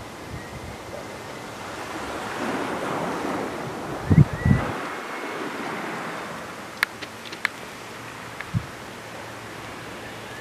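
Small waves washing on a shingle beach: a rushing hiss that swells and fades. Two low wind buffets hit the microphone about four seconds in, and a few sharp clicks follow a little later.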